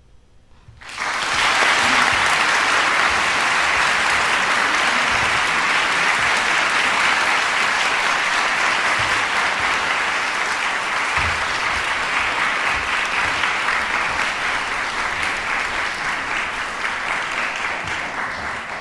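Concert-hall audience applauding. The applause breaks out suddenly about a second in after a brief hush, then holds steady and eases slightly near the end.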